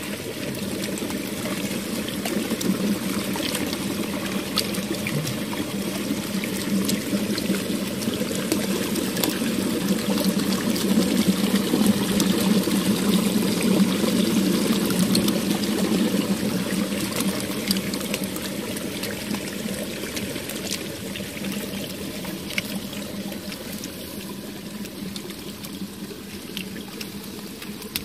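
Spring water pouring from an opening in the rock and splashing into a pool below, a steady rushing splash. It grows louder toward the middle and eases off again near the end.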